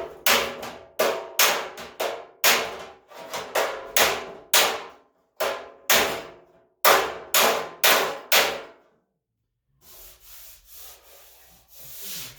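Body hammer striking the steel front fender of a 1978 Ford F100, about eighteen sharp blows with a brief ring, roughly two a second, dinging an over-bulged spot back down while working out dents. A softer, fainter rustling follows after the blows stop.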